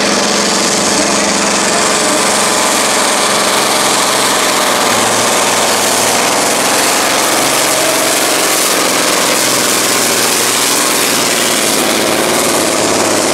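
Volvo NL10 Intercooler pulling truck's inline-six diesel, straight-piped, running flat out under full load as it drags the pulling sled down the track. Loud and steady throughout.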